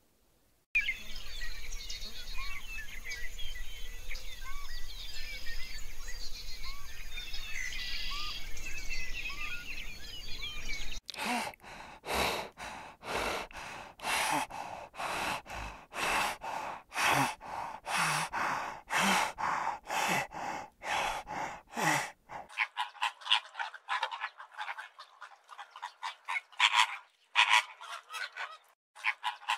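Animal calls in three short recordings. First a dense chorus of many small chirps. About a third of the way in it cuts to a run of separate calls, roughly two a second. It then changes again to quick clusters of high chirps.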